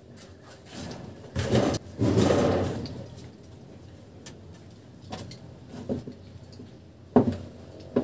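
Crackling buzz and sharp pops as wire ends are touched together to hook up a DIY transistor booster amplifier and loudspeaker for a first test: a loud crackling burst about two seconds in, then several short pops near the end.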